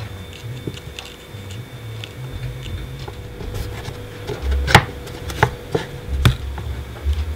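Handling noises on a workbench: a low rumble that comes and goes, then several sharp knocks and clicks a little past halfway through, over a faint steady tone.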